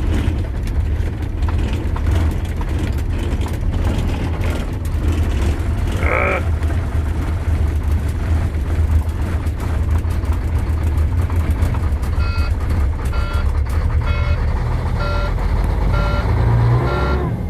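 Cold semi-truck diesel engine turning over and running with a steady low rumble on a freezing night. From about twelve seconds in, a warning beep sounds repeatedly, roughly once a second.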